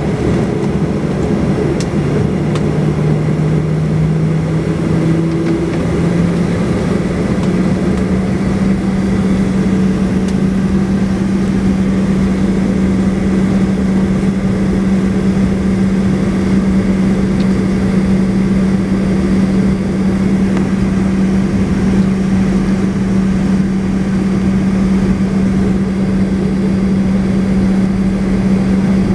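Boeing 737 jet engines heard from inside the cabin while taxiing: a steady loud rumble with a hum that rises in pitch a few seconds in, then holds level.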